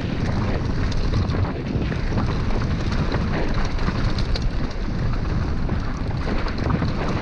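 Wind buffeting the camera microphone on a fast mountain-bike descent at about 27 mph, over the roar of knobby tyres on dirt and gravel. Frequent small knocks and rattles from the bike and trail run through it.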